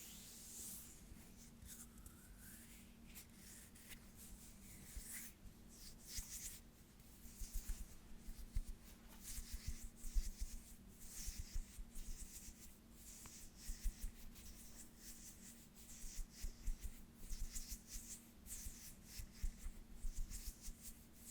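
Close-miked ASMR hand sounds: palms and fingers rubbing and brushing together in soft, hissy swishes. From about seven seconds in, quick soft low thuds come thickly among the swishes.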